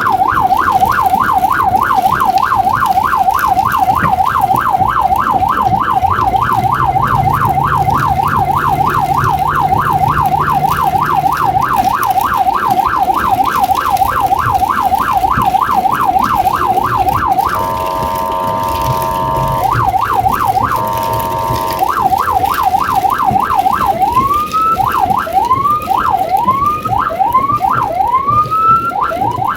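Electronic emergency-vehicle siren running Code 3: a rapid yelp, about three sweeps a second, broken twice by a steady blaring horn tone a little over halfway through. About 24 seconds in it switches to a slower pattern of rising and falling sweeps.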